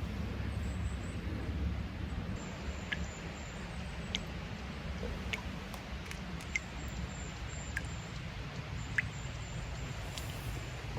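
Spring water running steadily over a low rumble, with scattered single sharp drips.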